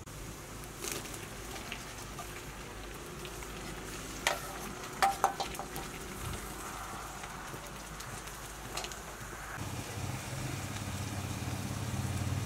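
Chopped tomatoes sizzling in a hot aluminium pot over a wood fire, with a few sharp clinks about four and five seconds in. A low rumble swells in near the end.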